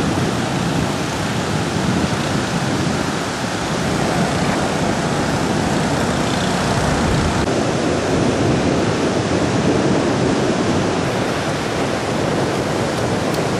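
Heavy surf washing onto the beach under strong wind, with wind buffeting the microphone in a steady rumbling roar.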